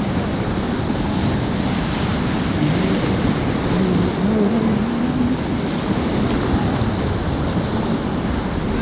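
River rapids rushing steadily around a raft, a loud, even roar of white water.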